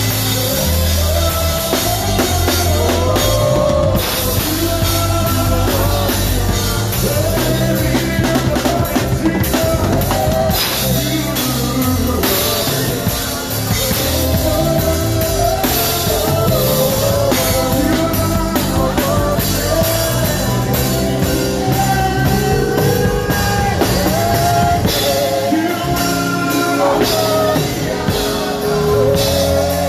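Live band playing loud amplified music: full drum kit with bass drum, a steady bass line and a sung melody over it.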